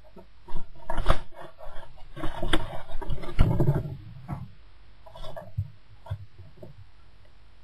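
Kestrel chick's beak and claws knocking and scraping on a wooden nest-box ledge. A rapid run of knocks and scrapes for the first few seconds, then a few scattered lighter knocks.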